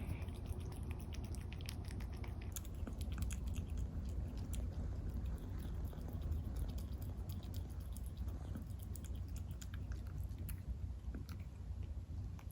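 Scottish Fold × British Shorthair kitten chewing food, a run of small, irregular crunching clicks that thicken from about two and a half seconds in.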